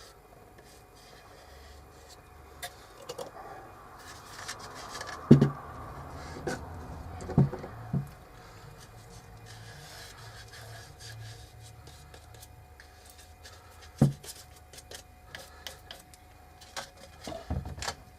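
Sealer being rubbed and dabbed onto the ends of a wooden piece, with scattered light clicks and a few sharp knocks, the loudest about five seconds in and another near fourteen seconds.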